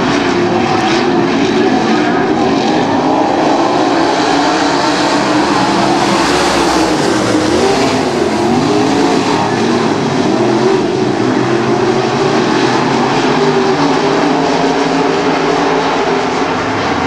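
Several dirt-track race car engines running hard in a pack around the oval, a steady loud drone whose pitches waver up and down as the cars go through the turns. The sound swells and brightens about six to nine seconds in as the cars pass closest.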